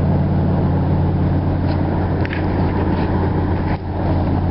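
Steady low drone of a vehicle's engine and road noise, with a brief dip about three and a half seconds in.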